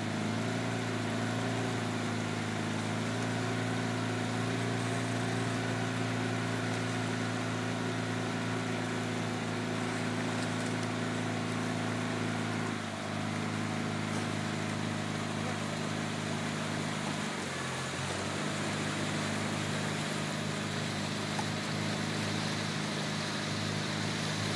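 Outboard motor of a coaching launch running steadily, over wind and water hiss. Its note shifts about halfway through and dips briefly a few seconds later before settling again.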